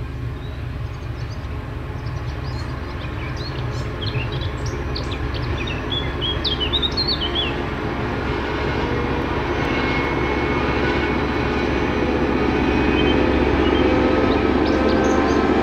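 Diesel engine of Czech class 754 locomotive 754 066 approaching, its low drone growing steadily louder. Songbirds chirp over it, mostly in the first half.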